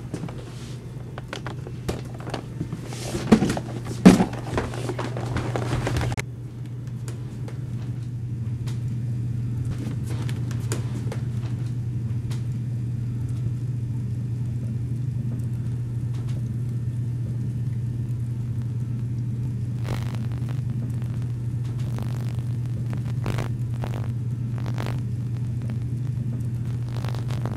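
A steady low rumbling hum, with clattering knocks and two loud thuds about three and four seconds in, then a few scattered clicks later on.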